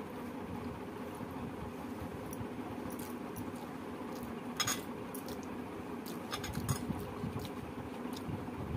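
A hand scooping chicken curry from a steel plate: a few short metallic clinks, one sharp one about halfway through and a quick cluster a couple of seconds later. A steady low hum lies underneath.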